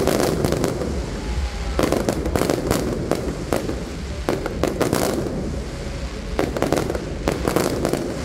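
Fireworks display: aerial shells going off in rapid volleys of sharp bangs, in about four clusters.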